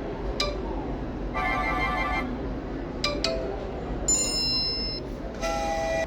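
iPhone 13 alert tones previewed one after another: several short chimes and pings, each lasting under a second, with sharp clicks between them.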